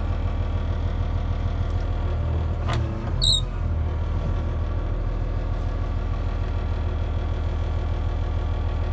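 Cat front wheel loader's diesel engine idling steadily, heard from inside the cab. A single brief, sharp noise comes about three seconds in.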